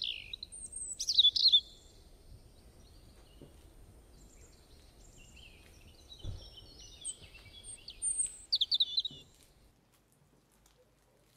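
Songbird chirps and trills from a recorded bird-song sound effect, in short bright bursts at the start and again from about seven seconds in. The birdsong and its faint background hiss stop almost ten seconds in.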